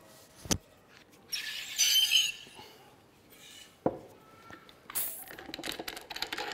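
Whipped-cream siphon being charged: a click, then about a second of high, whistling hiss as a gas capsule is screwed in and empties into the bottle. A sharp click follows, then a run of light metallic clicks and clinks near the end.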